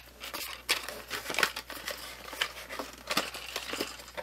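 Cardboard case-fan box and its packaging being handled and opened, with irregular crinkling, rustling and small clicks.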